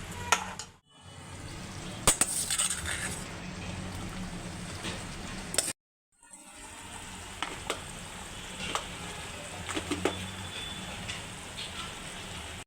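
Minced chicken keema sizzling in a pan while being stirred, with a spoon or spatula clinking and scraping against the pan now and then. The sound drops out completely twice, briefly, about a second in and about six seconds in.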